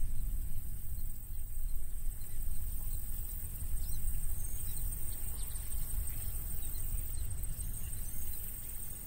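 Rural outdoor ambience picked up by a stereo pair of Sennheiser MKH 8040 microphones without wind protection: a fluctuating low wind rumble on the microphones, a steady high-pitched hum, and a few faint bird chirps.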